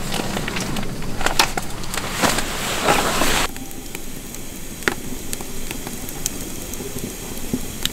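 Rustling of tent fabric and bedding as someone moves about inside a small tent. About three and a half seconds in, it gives way to a quieter wood-burning stove fire crackling, with a few sharp pops.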